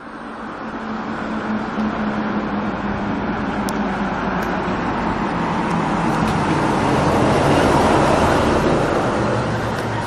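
Honda Little Cub motorcycle being ridden on the road: a steady engine hum under wind and road noise, building over the first couple of seconds and staying loud.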